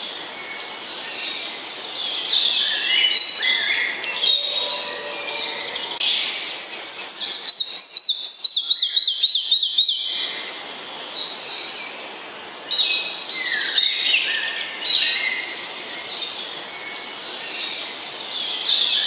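Several songbirds singing at once, a dense chorus of overlapping high chirps and whistles. About halfway through one bird gives a fast run of repeated chirps, about five a second.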